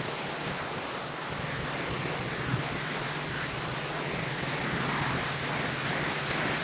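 Pressure washer spraying water onto concrete, a steady hiss with the machine's even hum beneath, growing a little louder near the end.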